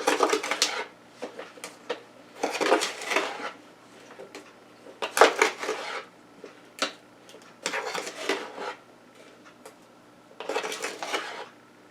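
Ground coffee being scooped into a reusable single-serve filter cup: about five short scraping, rustling scoops a couple of seconds apart, with light clicks and clinks.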